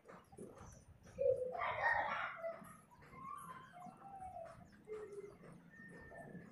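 Birds calling: a louder, longer call about a second in, then several short single notes at different pitches.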